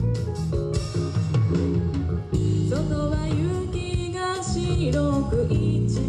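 Live J-rock band playing: electric guitar over drums and bass, with a sung vocal line coming in a little before halfway.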